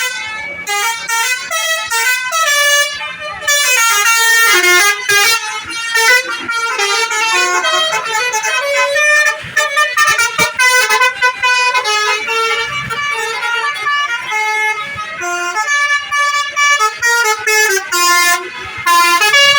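Telolet basuri bus horns playing a tune: loud horn notes changing pitch every fraction of a second, almost without pause.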